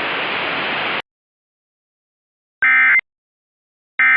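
Emergency Alert System end-of-message tones: short bursts of shrill digital data tone, the first about two and a half seconds in and the second starting just before the end, part of the three-burst signal that closes an EAS alert. Before them, a steady hiss left over from the voice message cuts off abruptly about a second in, followed by silence.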